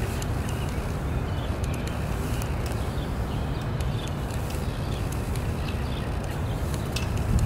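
Wind buffeting the microphone as a steady low rumble, with faint scattered ticks.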